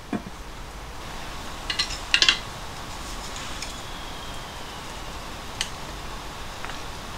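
Light tableware clatter: a soft wooden knock as a rice paddle and wooden lid are set on a rice pot, then a few sharp clinks about two seconds in and single clicks later on, like chopsticks and dishes being handled at the table.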